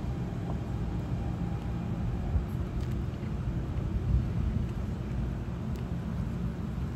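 Steady low rumble of an NJ Transit Arrow III electric multiple-unit railcar standing at the platform, with two brief knocks about two and four seconds in.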